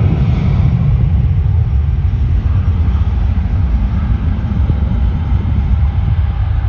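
Departing jet airliner's engines rumbling steadily.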